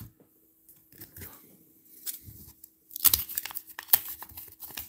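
Wax-paper baseball card pack being torn open by hand: a few faint rustles of handling, then about three seconds in a loud spell of crinkling and tearing as the waxed wrapper is ripped apart.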